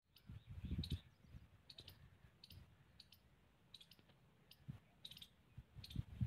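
Faint light clicks in quick little clusters, about one cluster every second, over a low rumble that swells near the start and again near the end.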